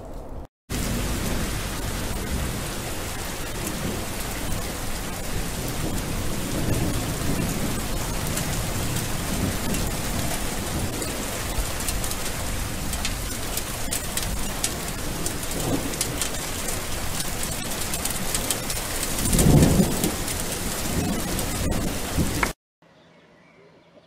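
Steady heavy rain, with low rolls of thunder; the loudest rumble comes about twenty seconds in. The downpour cuts in abruptly just under a second in and cuts off abruptly near the end.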